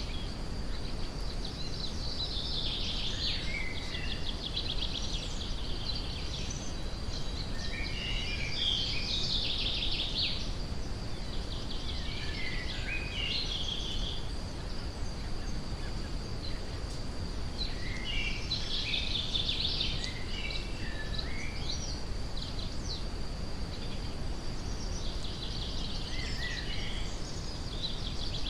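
Steady brown noise, a deep rushing hiss, under forest birdsong. A songbird gives about five bursts of rapid trilling song a few seconds apart, over a constant thin high-pitched tone.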